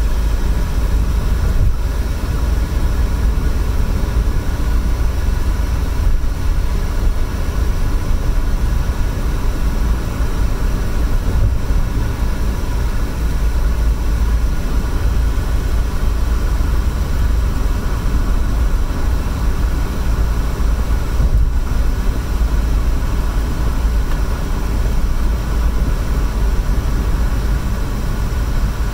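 Steady tyre and engine noise of a car cruising on a highway, heard from inside the cabin, dominated by a deep low rumble.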